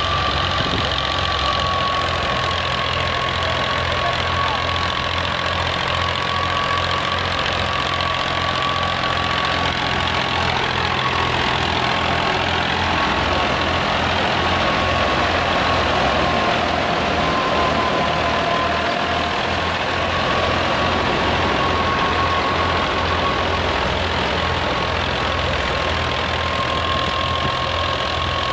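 Fiat 480 tractor's three-cylinder diesel engine running steadily under load, belt-driving a threshing machine as it is fed sheaves. The engine's low pulse runs under the thresher's dense whir and a steady high whine that wavers slightly.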